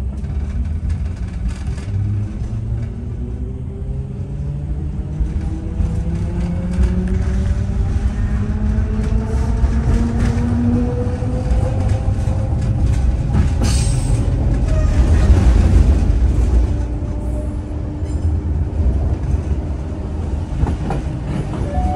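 ÖBB class 4020 electric multiple unit accelerating, heard from inside the passenger car: the traction motors' whine rises steadily in pitch over the first ten seconds or so, over a continuous rumble of the wheels on the rails. The rumble carries on at speed, with a brief sharp rattle about two-thirds of the way through.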